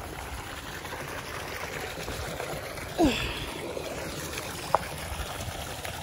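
Pool water trickling and running steadily. A brief falling voice cuts in about three seconds in, and there is a single sharp click near the end.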